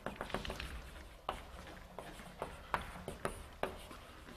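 Chalk writing on a blackboard: a string of irregular sharp taps and short scratches as the letters are written.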